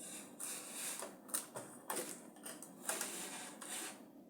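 Several sharp clicks over soft rustling and hiss.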